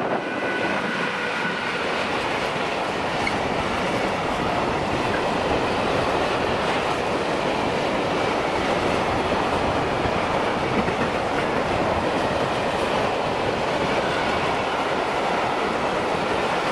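A train running past on the rails, a loud steady rush of wheel-and-rail noise that builds up right at the start and holds, with a faint high squeal from the wheels.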